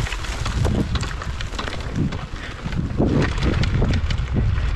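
A single-cylinder pit bike engine running at low revs, rough and uneven, with wind buffeting the microphone.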